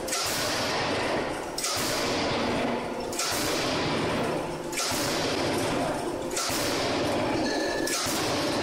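HUTA closed-die forging hammer, converted to a full hydraulic drive, striking at a steady pace: six heavy blows, about one every second and a half, each followed by a long ringing decay.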